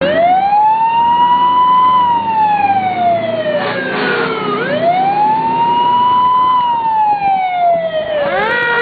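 Emergency vehicle siren sounding a slow wail, rising over about two seconds and falling over about two and a half, twice over. Near the end the pitch sweeps quickly up again. A low steady hum runs underneath.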